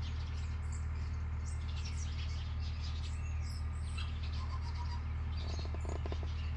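Small birds chirping on and off over a steady low rumble, with a short run of clicks about five and a half seconds in.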